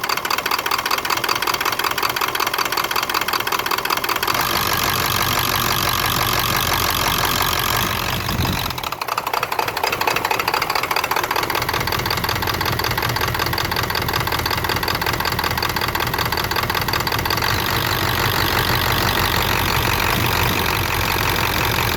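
A 1996 Ford F-250's 7.3-litre Power Stroke turbodiesel V8 running with a rapid clatter, its note shifting about four seconds in and dipping briefly around nine seconds before settling back. The engine idles roughly when coming off the throttle, the fault the owner is showing.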